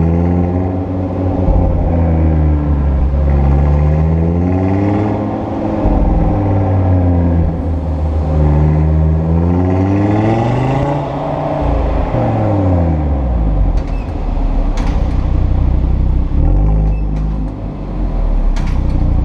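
Audi RS3's turbocharged five-cylinder engine running through its RS sport exhaust, engine speed rising and falling several times. A few short, sharp high sounds come near the end.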